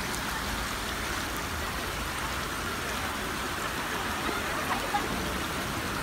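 Steady rush of water from a waterfall running over rock.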